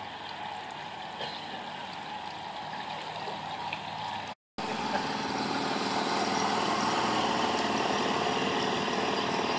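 Outboard motor of a small cabin cruiser running steadily as the boat passes. It is louder after a short break a little under halfway through.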